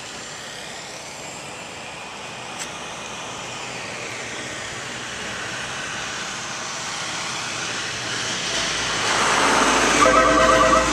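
Street traffic: a road vehicle approaching and growing steadily louder, with a brief warbling squeal near the end.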